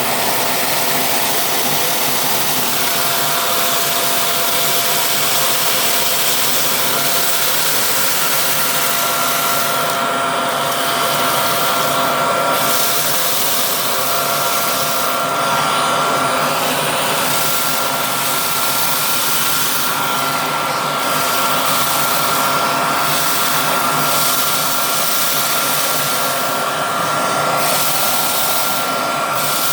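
Bagless vacuum cleaner running steadily, a constant motor whine over rushing air. The top of the hiss thins out briefly several times.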